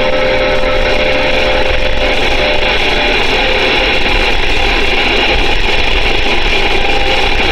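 CB radio receiver putting out loud, steady static and buzzing interference. A thin whistle-like tone runs through it and stops about three seconds in. The title lays the noise to transmissions from Mexico.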